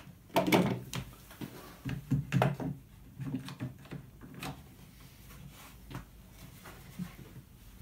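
A series of knocks and clunks as 2x4 timbers and one-handed bar clamps are handled and set on a wooden frame, the loudest about half a second in and again around two seconds in, with fainter knocks later.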